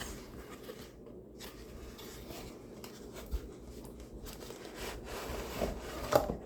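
Soft rubbing and scraping as a camcorder and its packaging are handled, with light clicks and a sharper knock near the end.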